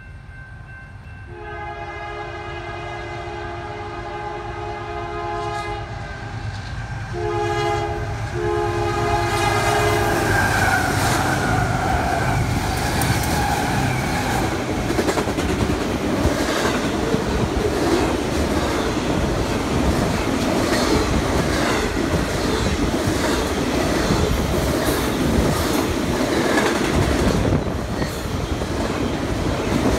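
Diesel freight locomotive sounding its multi-chime air horn: a long blast, then two shorter ones, with the last dropping in pitch as the locomotive passes. A double-stack container train then rolls by close at hand with a steady rumble and the clatter of wheels over rail joints.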